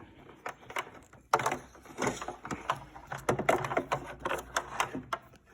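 Handling noise: irregular clicks and knocks of the phone and the plastic hair dryer being fumbled one-handed, with one sharp knock about a second in.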